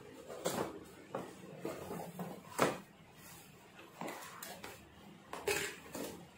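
Cardboard box being handled and its sealing tape cut with scissors: a series of irregular scrapes, snips and knocks, the loudest about two and a half seconds in.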